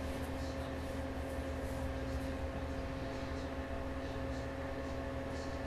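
Steady low machine hum, with two faint steady tones in it and a few faint soft ticks.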